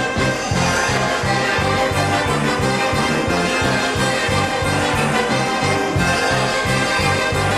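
Wind orchestra playing a lively piece at full strength, brass to the fore, over short bass notes pulsing in a steady rhythm.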